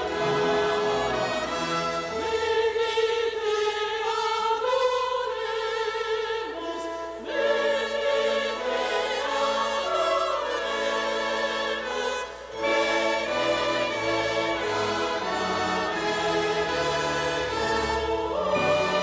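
Symphony orchestra playing a Christmas carol, accompanying female operatic soloists and a girls' choir singing with wide vibrato, with short breaks between phrases about seven and twelve seconds in.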